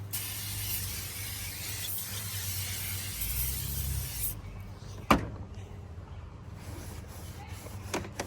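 Aerosol can of tire shine spraying in one continuous hiss for about four seconds, then stopping. A single sharp knock comes about a second later, over a low steady hum.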